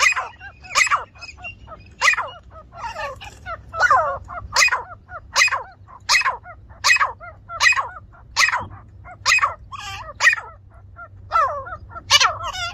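Grey francolin calling: a loud, harsh call repeated over and over, about one call every three-quarters of a second.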